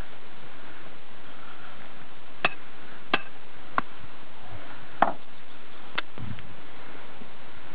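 A handful of short, sharp knocks, about six of them spaced irregularly half a second to a second apart from a couple of seconds in, over a steady hiss.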